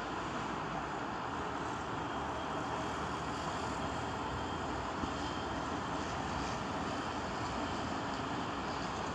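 Steady engine noise from heavy machinery running without let-up, such as a mobile crane's engine during the lift.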